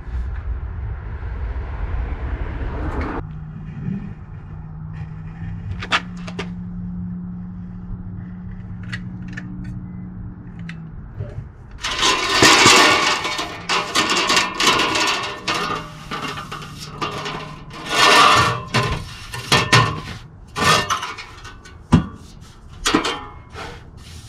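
A sheet of aluminum being handled and fitted against the RV's basement box: a run of loud scrapes, rattles and sharp metallic knocks in the second half, after a steady low hum with a few clicks.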